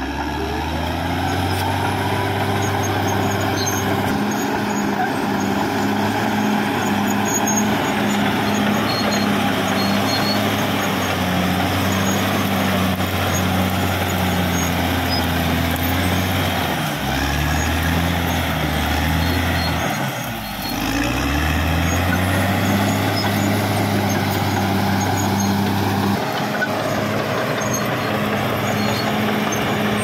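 Caterpillar D6R XL bulldozer's diesel engine running steadily, with a short dip in level and a fall and rise in pitch about two-thirds of the way through.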